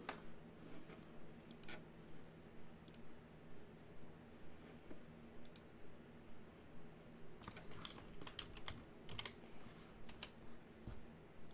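Faint typing on a computer keyboard. The keystrokes are scattered at first, then come in a quicker run about seven to nine seconds in, over a faint steady low hum.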